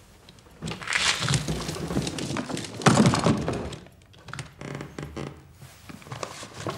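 A flurry of thuds and knocks with rustling, starting about half a second in, with the loudest thump near three seconds; fainter knocks follow.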